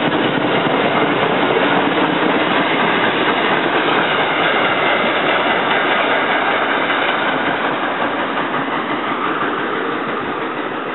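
SEPTA Silverliner II electric multiple-unit commuter train running along the track past the platform and pulling away. Its steady running noise slowly fades over the last few seconds.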